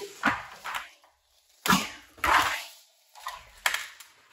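Handling noise from a car seat being worked on: a series of short scuffs and knocks from its cover, foam and trim, the loudest about two seconds in.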